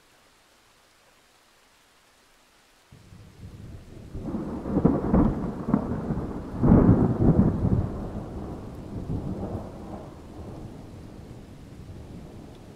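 A rumble of thunder that breaks in suddenly about three seconds in, swells twice and then slowly dies away, over a faint steady hiss.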